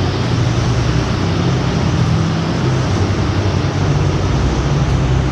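Troller's diesel engine running steadily at low revs while the vehicle drives along, under a constant rushing noise.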